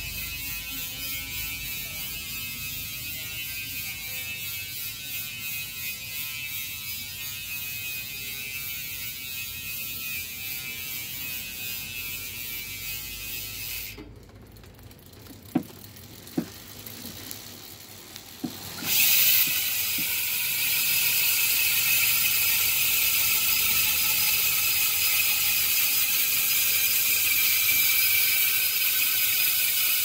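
Chosen 150T rear hub freewheeling as the rear wheel coasts: the pawls run over a 150-tooth drive ring and make a fast, steady high-pitched buzz. The buzz slowly drops in pitch and goes quiet about halfway, with a few sharp clicks. Then it comes back louder and higher as the wheel is spun up again.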